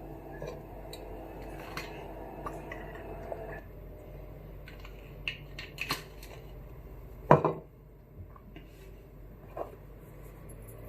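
Scattered clinks and taps of a knife and kitchenware, with one louder knock about seven seconds in. A faint steady hum runs under the first three and a half seconds.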